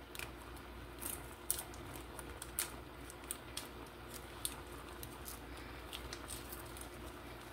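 Faint crinkling of a foil wrapper being peeled off a seasoning cube, with scattered small clicks and rustles as the cube is crumbled by hand.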